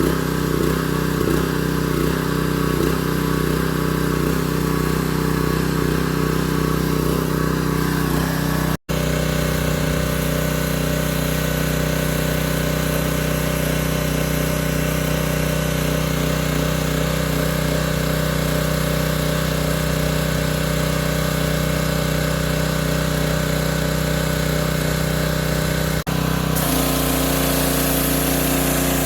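Husqvarna PW3200 pressure washer's Briggs & Stratton small engine running steadily, with a brief cut about nine seconds in and a shift in its tone near the end.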